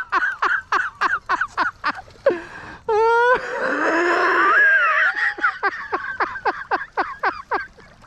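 A man laughing excitedly in quick, high-pitched bursts, about five a second, broken about three seconds in by a high held whoop.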